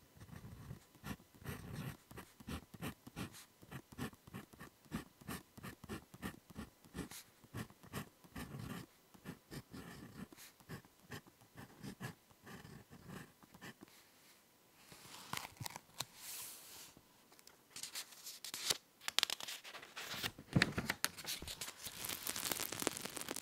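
Ballpoint pen writing on paper, close up: quick runs of short scratchy strokes, several a second, with brief pauses between words. In the last eight seconds the sound grows louder and rougher.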